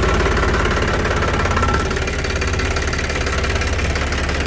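Tractor diesel engine idling, with the hydraulic power-steering system whining at full lock as the oil bypasses through the relief path once the steering ram has no further travel, which is normal at extreme left or right. The whine stops a little under two seconds in, while the engine keeps running.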